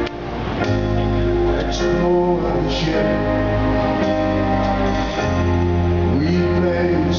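Live rock band playing: electric guitar, bass guitar and drums.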